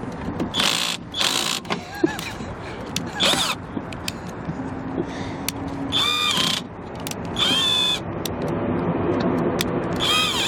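Underpowered drill running in several short spurts while being pressed hard into the mount, with high squeaks that bend in pitch. The drill is struggling for lack of power.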